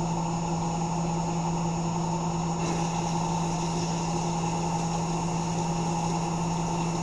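Tormach 1100 CNC mill running steadily, with a hum of several fixed tones that does not change.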